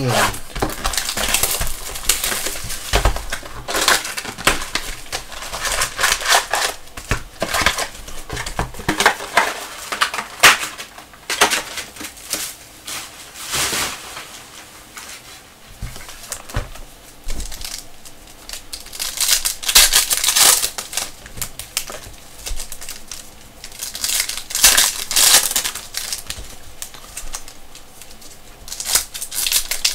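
Foil trading-card packs and cardboard box crinkling and crackling in irregular bursts as a box of 2017-18 Panini Prizm basketball cards is opened and its packs are pulled out, stacked and handled.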